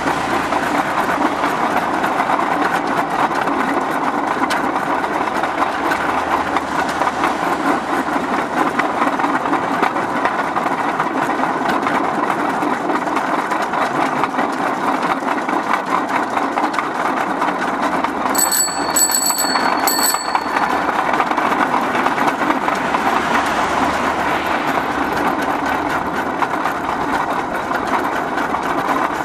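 Steady rolling noise of a bicycle-based rail draisine's wheels running along steel rails. About two-thirds of the way through, a bell rings three times in quick succession.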